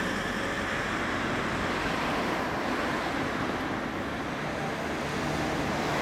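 2006 Yamaha YZF-R6 inline-four idling steadily through an SC-Project GP M2 slip-on silencer, with a steady rushing hiss over it.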